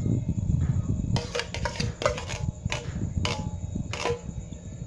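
Metal spoons clinking and scraping against a stainless steel bowl as macaroni salad is stirred, with a run of sharp clinks through the middle seconds. A low steady rumble runs underneath.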